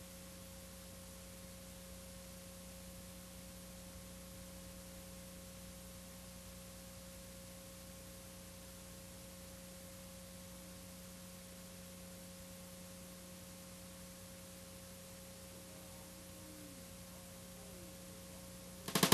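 Faint steady tape hiss with a low electrical hum and a thin steady tone: the noise of a VHS tape playing back a blank stretch.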